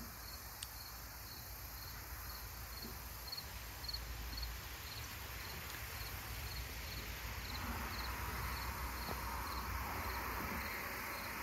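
An insect chirping in a steady, even rhythm, about two short high chirps a second. It is faint, over a soft background hiss and a low rumble.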